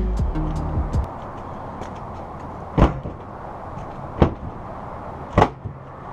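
Three sharp thumps about a second and a half apart, a panel of a Nissan 350Z being slammed shut. Background music fades out in the first second.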